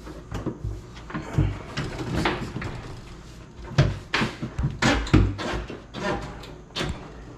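Dishwasher with a plastic tub being handled and shifted, making irregular dull thumps, knocks and scrapes, a few of them louder around the middle.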